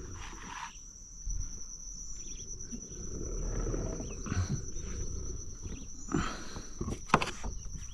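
Scattered knocks and rustles of gear being handled aboard a plastic fishing kayak, with a sharp click about seven seconds in, over a steady high-pitched whine.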